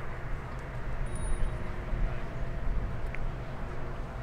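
Low, steady machinery hum of the P&O Arvia cruise ship passing close by, with a deep rumble and a few faint steady tones above it.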